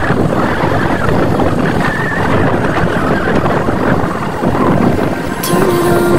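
Motorcycle riding over a rough dirt road, its engine running under heavy wind rushing over the microphone. A short steady tone comes in near the end.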